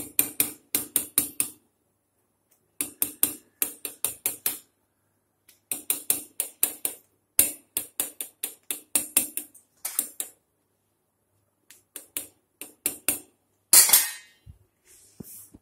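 Fork tines pricking rolled mathri dough and tapping through onto a stone countertop, in quick runs of sharp clicks with short pauses between. The holes are pricked so the mathri won't puff up when fried. A louder scraping clatter comes near the end.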